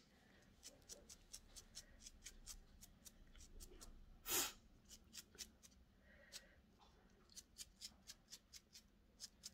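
Faint, scratchy ticks of a small brush flicking dirt off freshly picked chanterelle mushrooms held in the hand, a few strokes a second, with one louder rustle about four seconds in.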